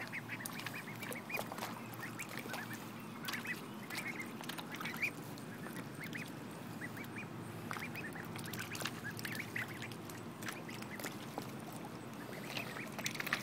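Young ducks calling with many short, high cheeps and soft quacks while they swim and dabble, with small splashes and clicks from the water.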